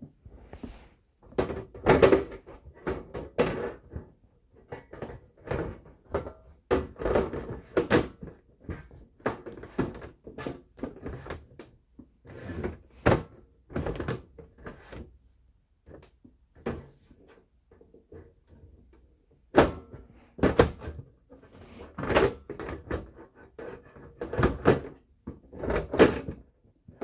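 Irregular clicks, knocks and scrapes of hard plastic and metal parts of a NAS being handled, fitted and snapped back together after a RAM module is installed.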